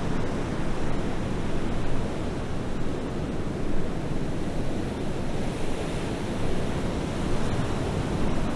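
Steady rushing noise of wind and sea, with no distinct events.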